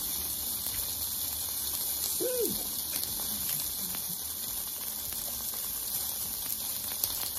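Polish sausages sizzling in a pan: a steady hiss, with a person's short hummed "mm" about two seconds in.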